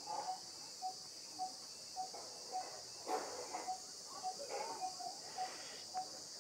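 Faint background ambience of insects: a steady high chirring, with a short tone repeating evenly a little under twice a second.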